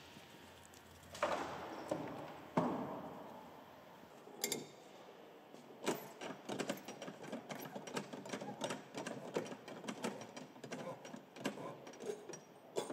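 Two heavy knocks in the first few seconds, then rapid, irregular mechanical clicking for the second half as the star-shaped adjustment knob on a Geringhoff corn head's snout tip is turned by hand to lift and lower the tip.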